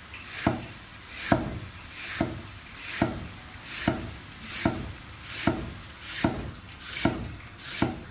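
Chinese cleaver slicing a lotus root into thin slices on a wooden chopping block, one slow, even stroke a little under a second apart. Each stroke is a short rasp through the root that ends in a knock on the block, about ten in all.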